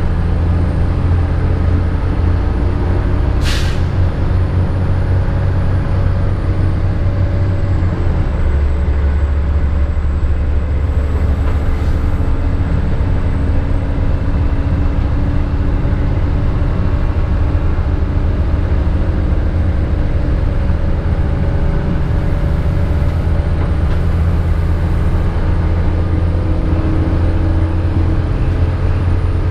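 Stadler Regio-Shuttle RS1 (class 650) diesel railcar running at speed, heard from the driver's cab: a steady low engine drone with running noise from the track, the drone shifting deeper about eight seconds in. A single sharp click a few seconds in.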